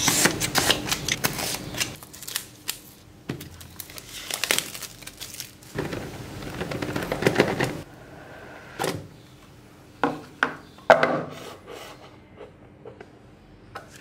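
Cardboard phone box being handled as its seal stickers are scraped and peeled off: rustling and scraping in the first two seconds and again around six to eight seconds in, then a few sharp clicks and knocks as the box is opened.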